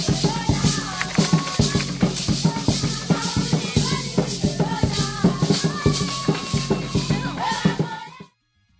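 A group of girls dancing in ankle rattles, the rattles shaking in a quick, dense rhythm with hand claps and stamping steps, while voices sing over them. The sound cuts off abruptly near the end.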